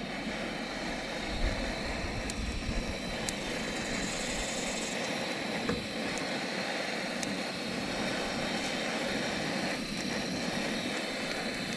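Gas torch flame, fed from a portable gas cylinder, burning with a steady hiss while it singes the feathers off birds.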